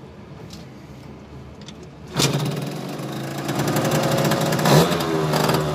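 A Yamaha Jog scooter's 50cc two-stroke engine starts suddenly about two seconds in and runs on the dyno, with the throttle blipped so the revs rise sharply to a loud peak near the end and then fall back. Before the start, only a faint steady hum.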